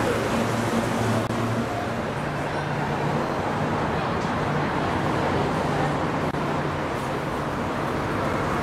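A steady low engine hum over a dense, constant din.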